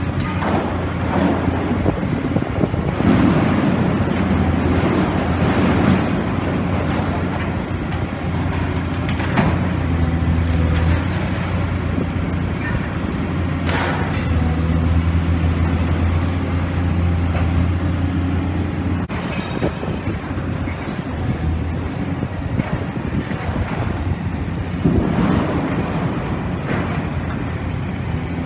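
Demolition excavator's diesel engine running with a steady low drone, over scattered crashes and clanks of building debris being broken and moved. The engine drone drops away about two-thirds of the way through.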